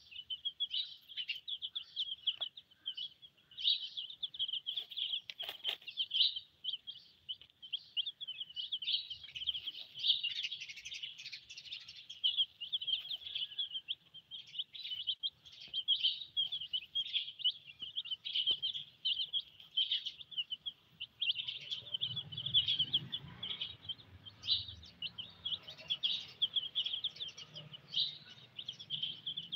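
A brood of Silkie chicks peeping without pause, many high, quick chirps overlapping.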